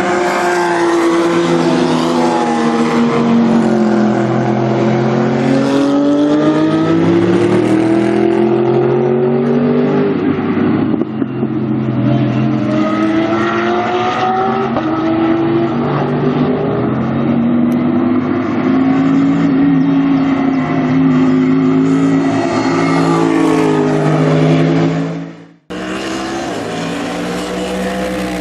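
Mercedes-AMG GT3 race car's naturally aspirated V8 running hard, its revs climbing and falling again and again through gear changes. About 25 seconds in the sound cuts off abruptly, then resumes with the engine at high revs.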